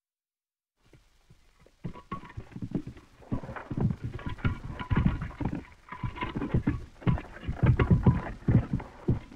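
Sculptor's mallet and chisel working stone: a dense, irregular run of sharp knocks and taps that starts faintly about a second in and thickens from about two seconds, with a faint ringing now and then.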